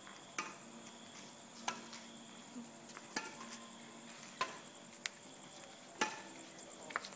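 Badminton racket strikes on a shuttlecock in a rally: sharp, short hits about every second or so, seven in all. Behind them runs a faint steady high-pitched tone.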